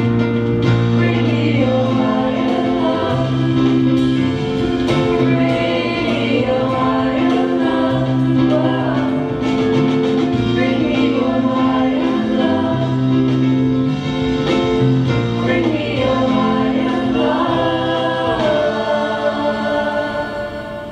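Intermediate school choir singing with instrumental accompaniment and a steady bass line; the music dies away over the last couple of seconds.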